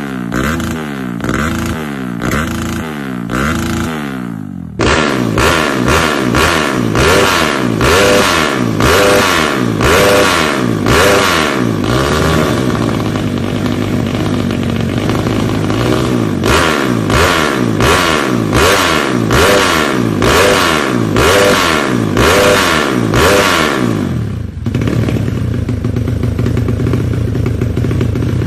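Single-cylinder trail bike engine breathing through a Norifumi Rocket 4 competition stainless exhaust, revved in repeated short blips about once a second. About five seconds in the sound cuts to a second bike with the same exhaust, and near the end the revving stops and the engine settles to a steady idle.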